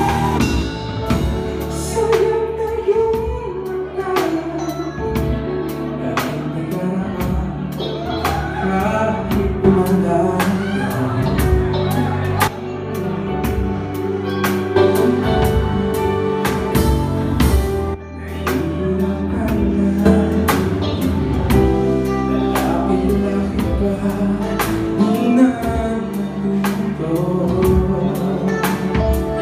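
Live band playing a song with a male vocalist singing into a microphone over electric bass, drum kit and guitar, with a steady drum beat.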